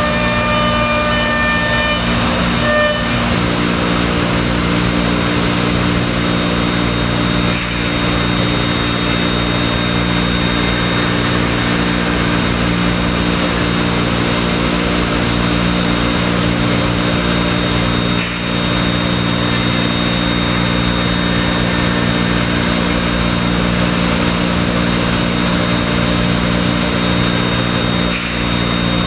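Spindle of a Thermwood M-90 five-axis CNC router running as its cutter mills MDF: a loud, steady machine noise over a constant hum. The sound shifts about three seconds in, when some higher tones stop.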